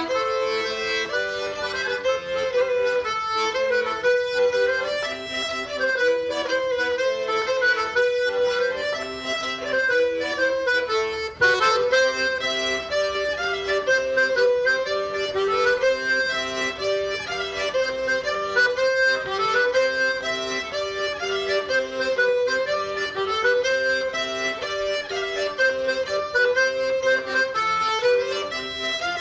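Accordion playing a lively dance tune for Breton dancing, a bouncing melody over steady lower notes. About a third of the way through, the music drops out for an instant and comes back in sharply on a new phrase.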